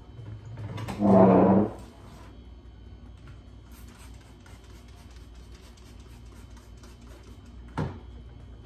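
Cloth wiping the glass door of a countertop air fryer oven, faint repeated rubbing strokes. About a second in there is one loud short sound with a low hum, and a single knock near the end.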